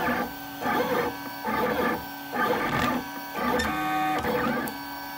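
FDM 3D printer printing, its stepper motors whirring in short repeated moves of the print head and bed, about one or two a second. There is a longer move with several steady, stepped tones just after the midpoint.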